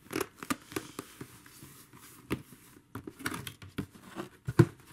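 A folded fleece throw blanket being pulled out of its cardboard box and handled: scattered rustles, scrapes and light clicks, with one sharp knock near the end.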